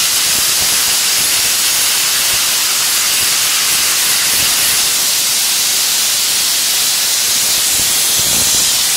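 Vapor (wet abrasive) blasting nozzle running with a loud, steady high hiss as the abrasive stream is blasted against a metal pedestal base.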